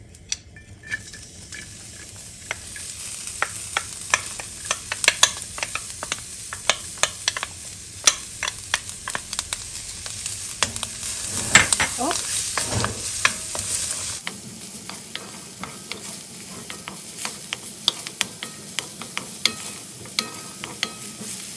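Diced onion sizzling in hot olive oil in a steel wok, the sizzle building over the first few seconds, with a wooden spoon scraping and clicking against the pan as the onion is stirred.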